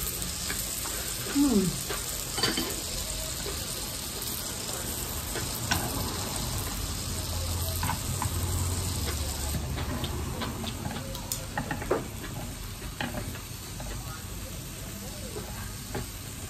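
Beef rolls wrapped around enoki mushrooms sizzling in a tabletop grill pan, a steady hiss of frying fat that eases a little about halfway, with light clicks of chopsticks against the pan.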